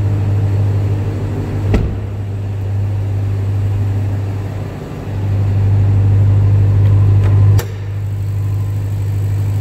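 Ram 1500 TRX's 6.2-litre supercharged Hemi V8 idling with a steady low hum. A knock comes about two seconds in and a sharper one later, after which the hum is quieter.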